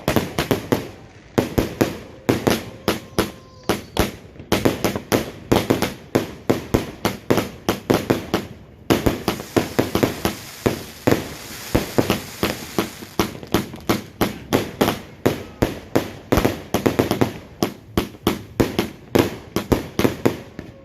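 A 150-shot firework cake firing shot after shot, sharp bangs coming several times a second with brief lulls. A denser stretch of crackling comes about nine to thirteen seconds in.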